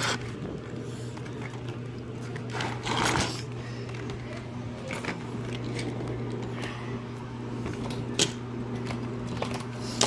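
Plastic Hot Wheels track pieces being handled and clipped together: a brief scrape about three seconds in and a few scattered clicks, the sharpest near the end, over a steady low hum.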